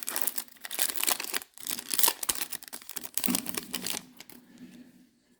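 Plastic wrapper of a trading-card pack crinkling and tearing as it is ripped open, for about four seconds before it dies away.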